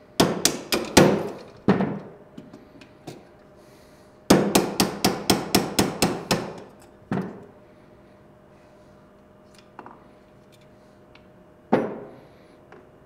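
A small hammer tapping a pin punch to drive the frame pins out of a Springfield Armory XDm Elite pistol frame. First comes a cluster of about six sharp taps, then after a pause a quicker run of about ten taps at roughly four a second, and one more tap. A single knock comes near the end.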